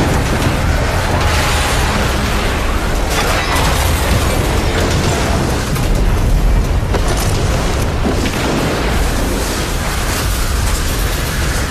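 Dramatised explosion sound effects: a loud, continuous deep rumble of booms and fire, with no pause.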